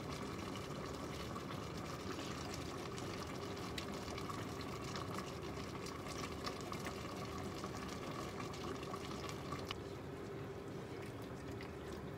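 Liquid seasonings poured from bottles into a metal measuring spoon and tipped into a stainless steel pot, with small clinks of the spoon against the bottle and pot, over a steady kitchen hum.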